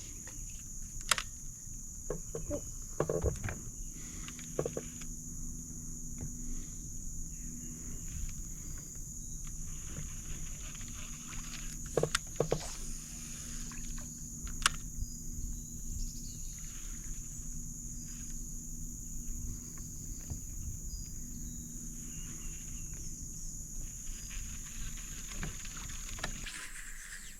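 Insects droning steadily at a high pitch, with a faint low hum that comes and goes and scattered clicks and knocks from handling gear in a boat.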